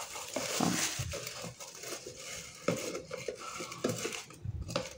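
Dry wood-wool shavings and a plastic bag rustling and crackling as handfuls are stuffed and pressed into a small MDF birdhouse, with irregular small crackles throughout; the sound cuts off suddenly at the end.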